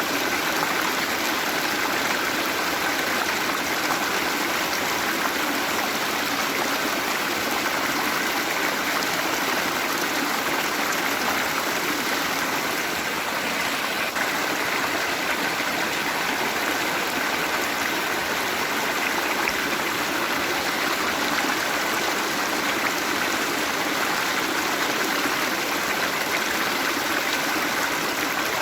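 Waterfall and running water: a steady, even rush of falling water without breaks.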